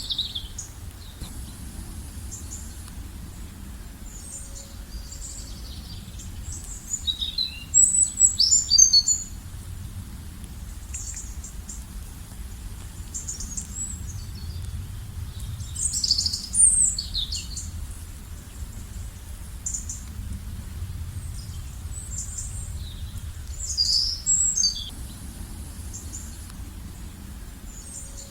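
Songbirds chirping and trilling in short high phrases, loudest in three bursts about a third of the way in, past the middle and near the end, over a steady low rumble.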